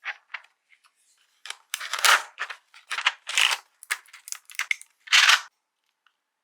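Typing on a custom mechanical keyboard fitted with Gateron Yellow Pro linear switches: irregular runs of sharp keystroke clacks, some in quick flurries.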